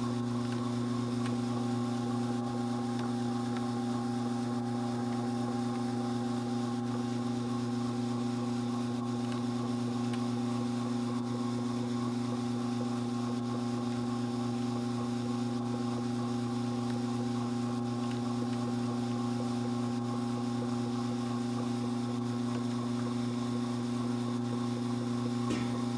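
Strauch Mad Batt'r electric drum carder running at a steady speed: a constant motor hum with its drums turning as dog hair is fed in.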